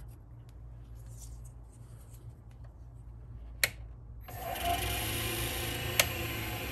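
A lathe is switched on: a sharp click a little over three and a half seconds in, then the motor starts and runs steadily, spinning an ebonite blank in a 4-jaw chuck, with another sharp click about six seconds in.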